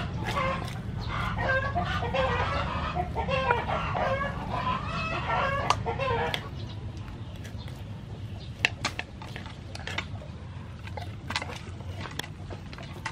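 Hens clucking over and over for about the first six seconds, then falling quiet. After that, scattered sharp taps and scrapes of a knife on a wooden chopping board, over a steady low hum.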